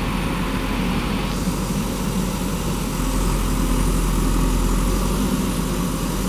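JCB backhoe loader's diesel engine running steadily at a low, even speed.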